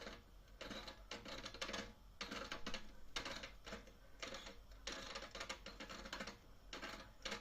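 Household gas meter's mechanism chattering and squeaking in short scratchy bursts, a little more than one a second, which the owner puts down to the meter being tired.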